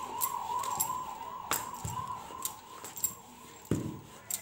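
A siren wailing, its pitch wavering up and down about three times a second, fading out a little past halfway. Under it, light knocks and clicks of a rolling pin flattening dough on a flat surface.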